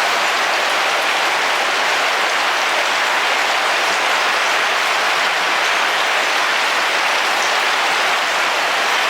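Heavy rain falling steadily on the roof of a camping car, heard from inside: an even, dense hiss with no thunder.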